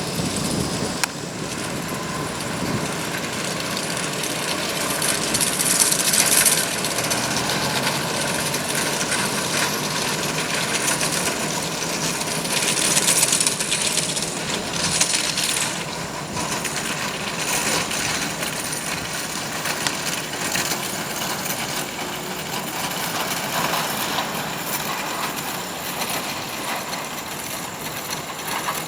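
Jet engine noise of a Boeing 787-9 holding steady, with faint steady tones inside the rush. It grows brighter and louder in the high end about six seconds in and again around thirteen seconds.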